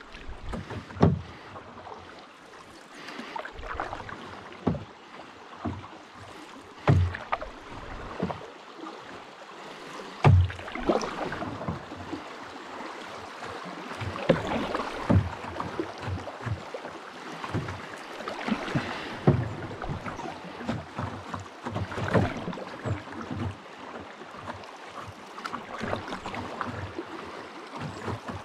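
Paddle strokes splashing and dripping in river water, with a sharp knock every few seconds as the paddle strikes the side of the boat.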